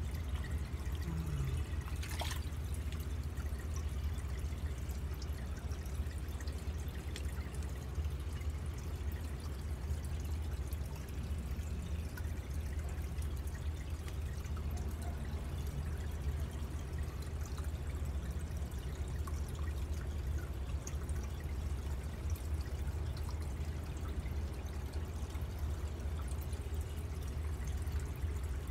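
Small pond fountain spilling water onto the pond surface: a steady pouring trickle with drips, over a steady low hum. A sharp click about two seconds in.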